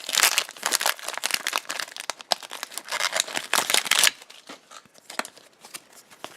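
Foil wrapper of a Pokémon trading card booster pack crinkling and tearing as it is opened, dense for about four seconds, then dropping to fainter rustling.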